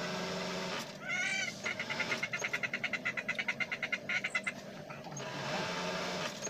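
An animal call: a short pitched call about a second in, then a fast, even trill of clicking notes, about nine a second, for close to three seconds.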